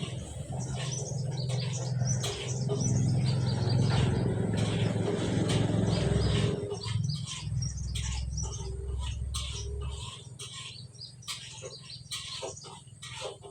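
Small birds chirping repeatedly over a steady low hum. The hum drops lower about seven seconds in and fades out a few seconds later.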